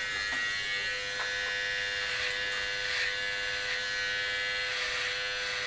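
Electric hair clippers running with a steady, even buzz while cutting hair.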